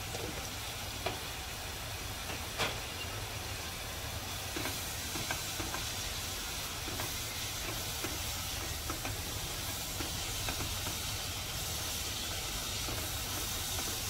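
Chopped onions sizzling with a steady hiss in oil in a nonstick pan while being stirred with a silicone spatula, their water cooking off as steam, with a couple of light spatula taps in the first few seconds.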